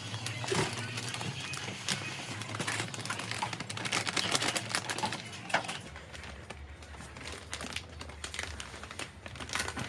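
Crinkling, with many scattered clicks and taps from things being handled.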